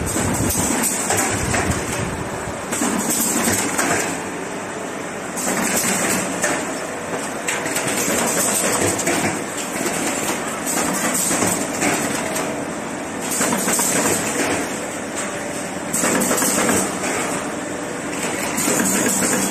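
Automatic corrugated paperboard partition assembler machine running: a steady mechanical noise that swells louder every two to three seconds.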